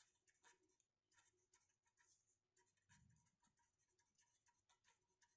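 Near silence, with the faint, irregular scratching of a felt-tip marker writing on paper.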